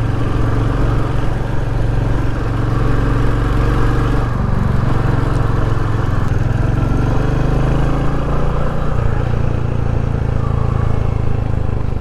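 Royal Enfield Hunter 350's single-cylinder engine running steadily under way as the motorcycle rides along a mountain road. The engine note shifts about four seconds in and again around nine seconds.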